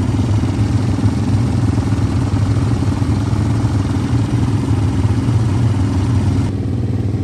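ATV engines idling, a steady low drone.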